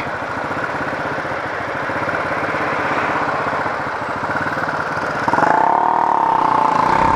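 Yamaha YS 250 Fazer's single-cylinder engine running under way, heard through a microphone mounted on the rider's helmet. About five seconds in, a steady higher tone joins the engine and the sound grows louder.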